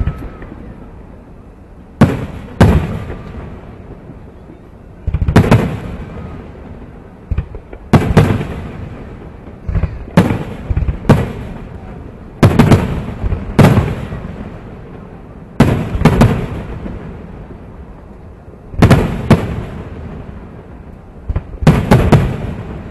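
Aerial fireworks shells bursting: sharp booms every one to three seconds, often two in quick succession, each trailing off in a rolling echo.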